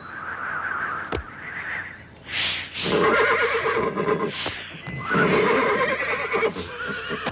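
A horse whinnying several times in a row, the loudest calls about three and five seconds in. It is an irritated horse, upset at a stranger coming near.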